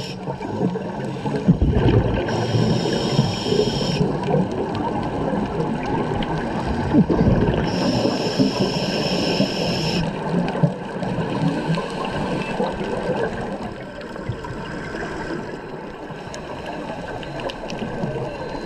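Scuba diver's regulator breathing underwater: two inhalations, each a hiss lasting about two seconds, with the bubbling and gurgling of exhaled bubbles between and after them.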